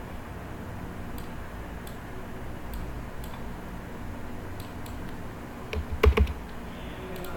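Scattered clicks of a computer mouse and keyboard, with a louder cluster of clicks and a low thump about six seconds in, over a steady low background noise.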